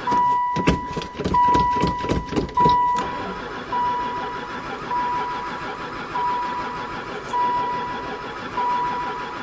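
A van's starter cranks the engine for about three seconds, about four turns a second, without it firing, then stops; the owner suspects it has no spark. A dashboard warning chime beeps steadily on and off about once a second throughout.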